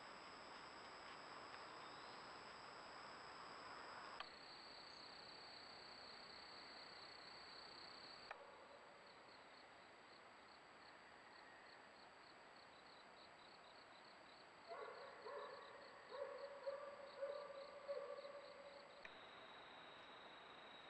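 Faint night insects, crickets or katydids, trilling steadily, with a fast pulsed chirping for a while. From about 15 to 19 seconds in, a louder run of short, pitched calls from an unseen animal rises over them.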